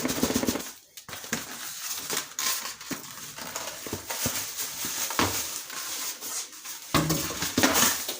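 Packaging being handled while a new drip coffee maker is unpacked: plastic wrap and cardboard rustling and crinkling, with scattered light knocks.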